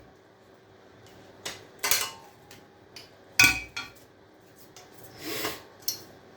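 Pieces of scrap copper clinking and knocking as they are handled and dropped into a sack. There are several separate knocks, the loudest about three and a half seconds in.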